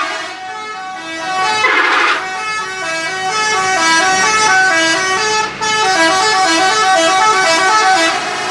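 Telolet horns on Zakki Putra buses: multi-trumpet musical air horns playing a fast tune of short notes that change pitch several times a second. There is a louder blast about two seconds in.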